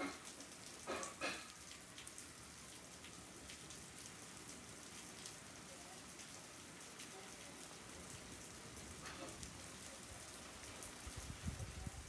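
Steady rain falling on shrubs and pavement, a soft even hiss flecked with the ticks of single drops. Two brief louder sounds about a second in, and a low rumbling near the end.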